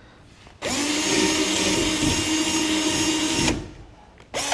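Rockwell 20V cordless drill boring a hole through a kayak's hull for a pad eye rivet. It runs steadily at full speed for about three seconds, starting just under a second in, then stops. A short second burst from the drill comes near the end.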